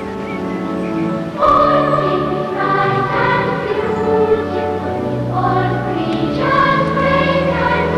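Theme music with a choir singing long held chords that change every second or two, growing louder about a second and a half in.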